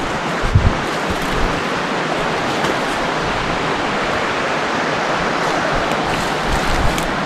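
Creek water rushing steadily, with a few low thuds of wind on the microphone about half a second in.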